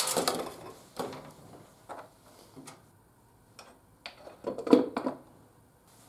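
Knocks and clatter of a motorcycle rear wheel, its axle and metal spacers being handled and fitted at the hub: a sharp knock at the start, a few single knocks, then a quick cluster of knocks about four to five seconds in.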